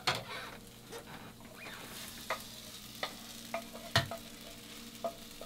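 A utensil scraping and tapping kimchi fried rice out of a nonstick frying pan onto a plate: scattered clicks and scrapes, with a louder knock about four seconds in, over a faint sizzle from the still-hot rice.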